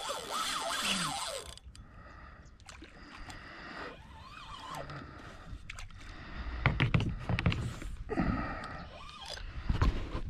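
Fishing reel and rod handling from a kayak while a hooked redfish pulls on the line: a rush of scraping noise in the first second and a half, then scattered clicks and knocks, with low thumps in the second half.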